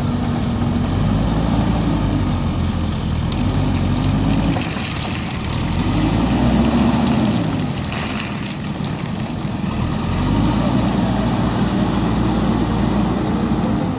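JCB backhoe loader's diesel engine running under working load, its pitch rising and falling in swells every few seconds as the hydraulics are worked. A few faint clicks or knocks come about five and eight seconds in.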